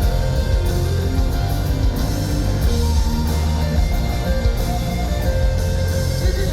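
Pop-rock band music in an instrumental passage with no singing, guitar to the fore over a full, steady backing.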